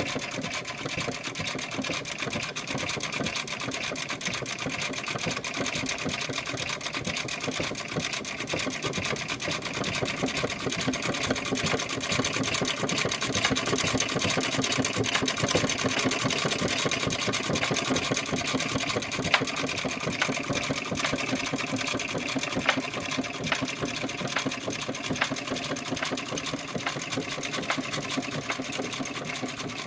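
1865 Florence sewing machine running steadily at a fast, even pace, a rapid clatter of its stitching mechanism, a little louder through the middle with a few sharper clicks later on.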